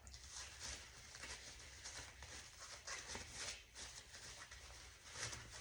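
Faint, scattered rustling and light handling noises from cardboard packing as a graphite ingot mould is taken out of its box.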